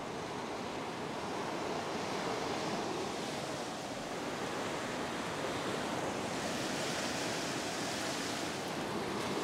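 Ocean surf breaking and washing up a sandy beach: a steady rushing, with a brighter hiss as a wave runs up the sand from about six seconds in.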